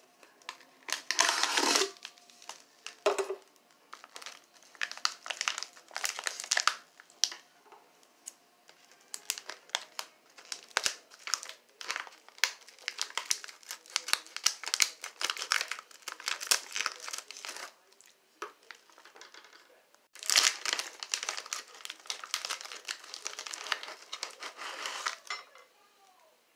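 Foil snack wrappers crinkling as they are handled, pulled from a tin and cut open with scissors. The crackling comes in irregular stretches, pauses briefly about eighteen seconds in, then resumes.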